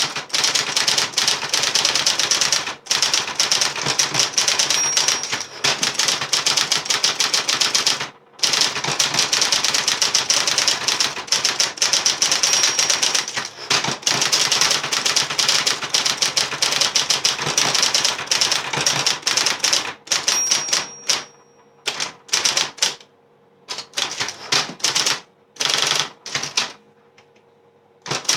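Adler Electric 131F electric typewriter being typed on: fast, dense runs of key strikes with short pauses, more broken toward the end, over the steady hum of its running motor. A brief high ring sounds about three times.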